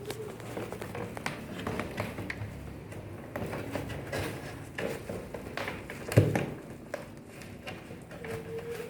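Scattered light knocks and taps of things being handled, with one louder thump about six seconds in.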